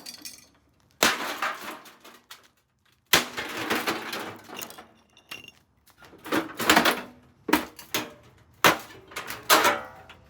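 An Emerson MW7305BC microwave being smashed: a series of heavy blows on its metal casing and parts, each with a crash and clatter of breaking pieces. The blows come a couple of seconds apart at first, then about one a second near the end.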